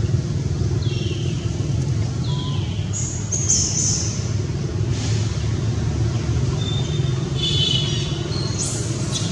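Steady low rumble, with a few short high chirps about one and two seconds in and a brief high call near the end.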